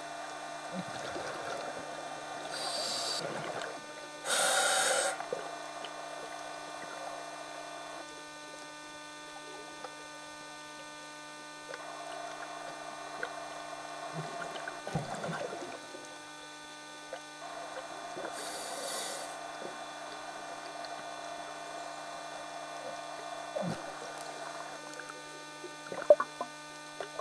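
Underwater sound picked up by a camcorder in a dive housing: a steady hum from the camera. Over it a scuba diver's regulator hisses with breaths, loudest twice a few seconds in and again in the middle, with a few low bubbly gurgles and knocks between.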